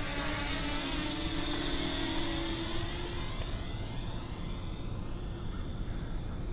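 Parrot Anafi quadcopter drone's propellers whining in flight, a steady pitched hum that fades after about three seconds, its pitch sliding down.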